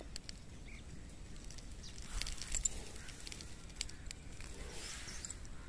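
Faint rustling and crackling of broad bean leaves and stems being brushed, with scattered soft clicks, a little louder about two seconds in.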